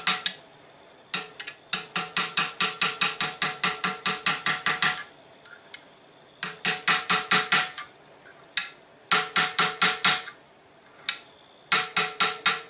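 Hammer tapping a pin punch to drive a roll pin into an M1 Garand's front barrel band: quick runs of light metallic taps, about five a second, each with a short ring. The taps come in four bursts, the longest first, with brief pauses between them.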